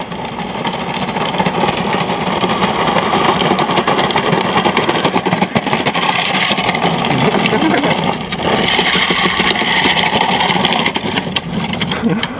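Kids' ride-on toy truck converted to radio control, its 2150kv brushless motor and gearing driving the wheels over rough asphalt: a steady rolling rumble and drive whine. It builds over the first couple of seconds as the truck comes close, and lets up briefly about eight seconds in.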